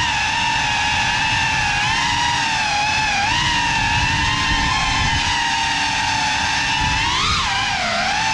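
Motors and propellers of a small indoor FPV quadcopter whining, heard from the drone's own onboard camera. The pitch wavers with throttle, rising sharply then dipping about seven seconds in.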